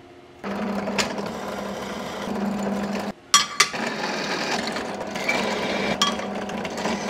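Bench drill press running, its bit cutting into a steel plate with a steady motor hum. It stops briefly about three seconds in, followed by a few sharp clicks, then runs and cuts again until the end.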